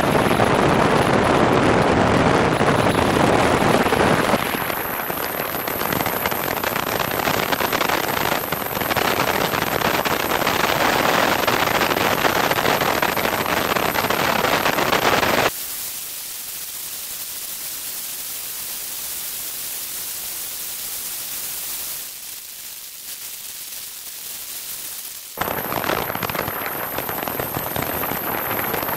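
Loud rush of wind and airflow buffeting a camera microphone mounted under the wing of a Piper Cherokee light airplane as it moves. About halfway through it cuts abruptly to a faint hiss, and about ten seconds later the loud rush cuts back in just as abruptly.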